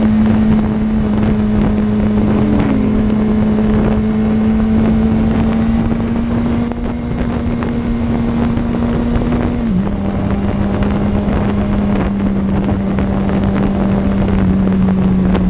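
Motorcycle engine running steadily at highway cruising speed, heavy wind noise on the microphone over it. The engine's pitch drops slightly about ten seconds in, then holds steady again.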